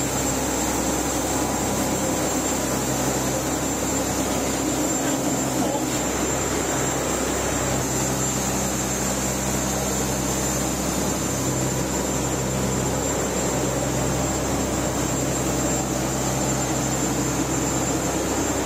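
Fishing boat's engine running steadily, a constant low drone with a thin high whine above it.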